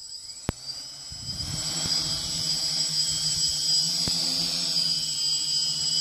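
Small FPV quadcopter's electric motors and propellers whining as it throttles up and flies, building over the first two seconds and then holding a steady high whine over a lower hum. A sharp click about half a second in.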